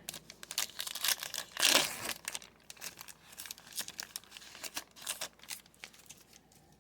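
Foil trading-card pack wrapper being crinkled and torn open, a run of crackles with one louder rip about two seconds in.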